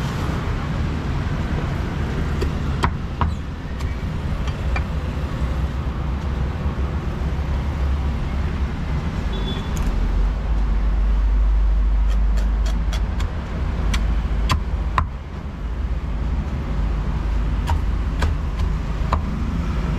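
Street traffic rumble, with a vehicle passing close from about ten to fourteen seconds in, and scattered sharp knocks, several in quick succession after the vehicle passes.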